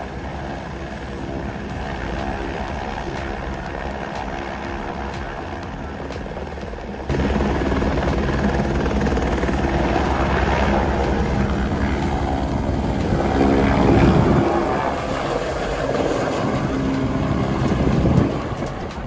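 Helicopter rotor and turbine running close by, becoming louder about seven seconds in as it lifts off. Near the end its pitch sweeps down and the sound falls away as it flies off.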